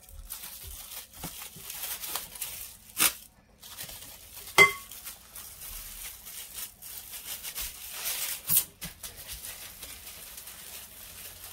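Clear plastic wrap crinkling and rustling as hands fold it around a lump of dough. Two sharp knocks land about three and four and a half seconds in; the second is the loudest and has a brief clinking ring.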